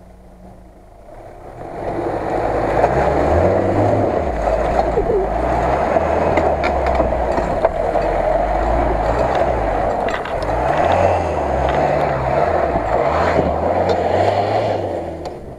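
Lada Niva (VAZ 2121) engine revving up and down under load as the off-roader climbs out of a mud pit and drives past close by. It starts about a second and a half in and fades as the vehicle pulls away near the end.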